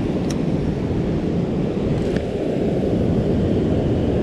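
Steady low rumble of ocean surf breaking and washing over a rocky cobble shore.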